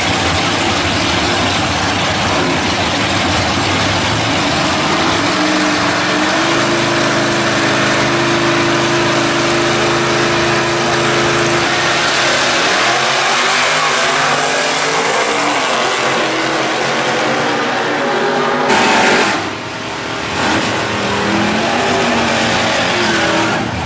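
Two drag cars' engines running loudly at the starting line, holding steady revs and then revving up and down. About 19 seconds in, both cars launch at full throttle in a sudden loud burst, and the sound falls away as they pull off down the strip.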